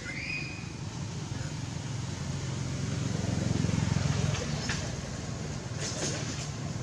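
Low engine hum of a passing motor vehicle, swelling to its loudest around the middle and then easing off. A short high squeak comes just after the start, and a few faint clicks follow.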